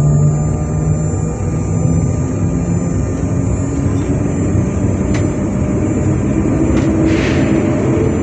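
Stationary Z 20718 electric multiple unit (Z2N double-deck RER D train) standing at the platform, its onboard equipment giving a loud steady hum with a high whine above it. A couple of sharp clicks about five and seven seconds in, and a short hiss just after seven seconds.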